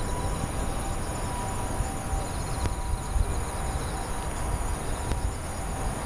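Autumn insects chirping in chorus at night: a steady high trill with pulsed chirping trills beneath it, over a low rumble.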